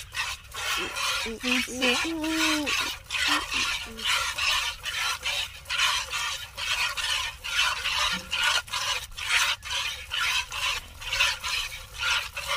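Milk squirting from a cow's teats into a plastic bucket during hand milking, in a steady rhythm of about two squirts a second.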